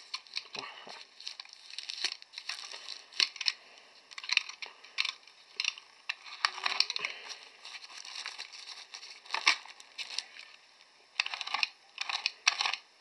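Thin plastic wrapping crinkling and tearing as it is cut and pulled open with a utility knife, in irregular bursts of crackle.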